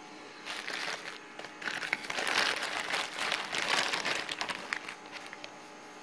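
Clear plastic packaging crinkling and crackling as it is handled. It starts about half a second in, is loudest in the middle, and dies away about five seconds in.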